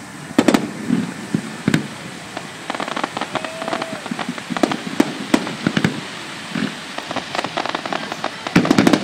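Fireworks display: irregular bangs of shells bursting, with stretches of rapid crackling, and a cluster of loud bangs near the end.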